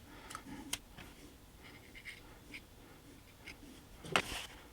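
Faint handling sounds of small model parts and glue at a workbench: light scrapes and a few clicks, with a sharp click under a second in and a louder knock about four seconds in.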